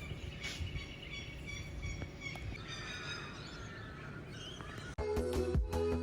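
Birds calling, a run of repeated calls over a low outdoor background. About five seconds in, louder electronic background music cuts in abruptly.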